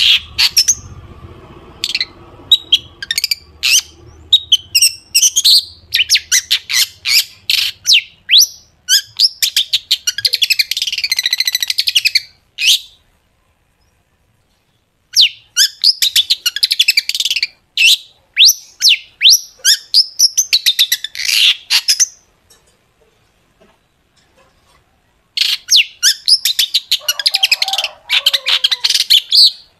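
Long-tailed shrike (cendet) singing loud, rapid runs of sharp, high, chattering notes packed with 'tembakan' shots. The song stops twice for a few seconds and then resumes.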